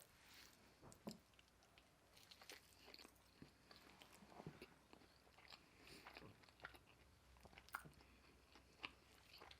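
Faint, close-up mouth sounds of a person chewing and biting fast food, with scattered small wet clicks and smacks.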